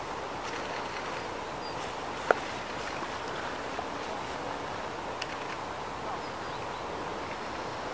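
Red deer stags' antlers clashing as they fight, with one sharp knock a little over two seconds in and a fainter one about five seconds in, over a steady outdoor hiss.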